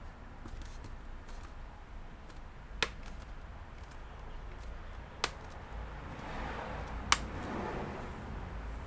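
Three sharp plastic snaps, about two seconds apart, as the HP Omen 15 laptop's display bezel clips are pressed back into place, with some handling rustle before the last and loudest one. A low steady hum runs underneath.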